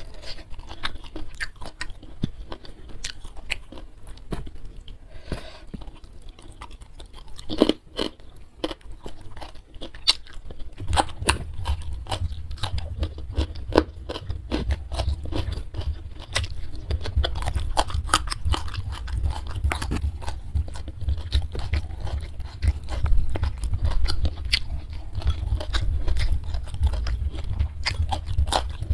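Close-miked chewing and biting of food by hand, with many sharp mouth clicks and small crunches. A low rumble joins underneath about eleven seconds in.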